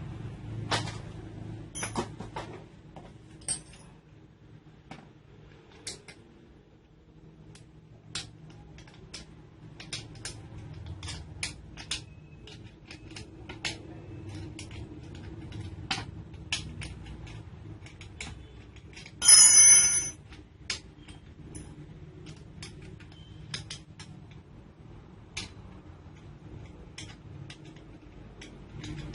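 Small metal parts and tools being handled: scattered sharp clicks and taps, with one short, loud metallic clatter about two-thirds of the way through.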